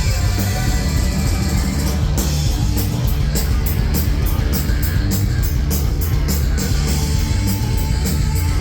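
Live rock band playing loud, with electric guitar over a driving drum kit beat. Rapid, even cymbal hits come in about two seconds in.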